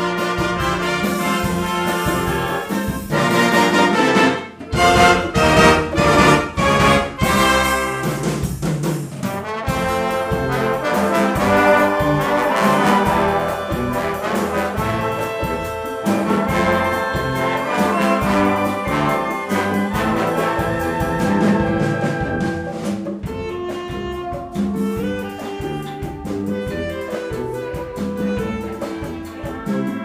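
Symphonic wind band playing, clarinets and brass together in full harmony. About four seconds in comes a run of loud, short accented chords, after which the music settles into a smoother, sustained passage.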